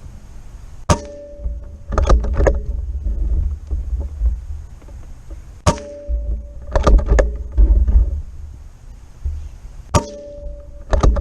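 Three shots from a .25-calibre Benjamin Kratos PCP air rifle, about four and a half seconds apart. Each is a sharp crack with a brief ringing tone, followed about a second later by a quick run of clicks.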